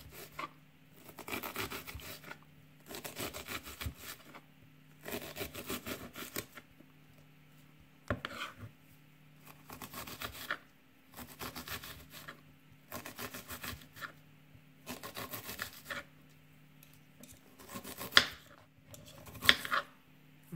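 Paring knife slicing through an onion held on the steel prongs of an onion holder, against a wooden cutting board: bursts of quick cutting strokes about every second and a half, with two sharper knocks of the knife near the end.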